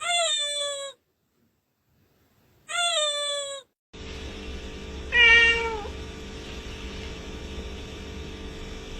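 Cat meowing three times, each meow drawn out for under a second and falling in pitch. About four seconds in, a steady low background sound starts and runs under the third meow.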